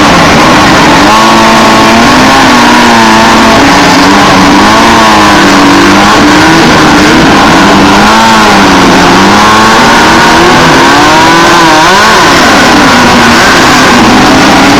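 Class 1600 off-road race cars' air-cooled VW engines running and revving together: several engine notes overlap, their pitches rising and falling. Very loud throughout.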